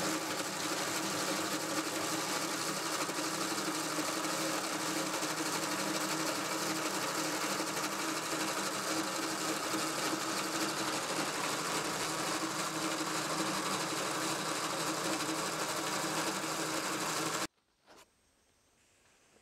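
Bobcat M611 transmission turned by an electric motor, its belt pulleys and drive chain spinning with a steady running sound and a constant hum. It cuts off abruptly near the end.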